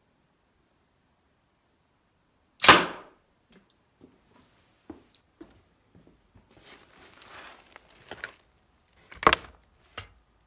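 Electromagnetic coil gun firing a nail, one loud sharp crack about two and a half seconds in, after a faint high-pitched whine that stops at the shot. Then scattered clicks and rustling, and a second loud bang near the end.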